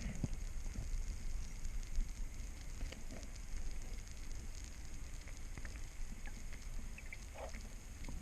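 Underwater ambience as picked up by a camera in its housing: a steady low rumble of water with scattered clicks and crackles.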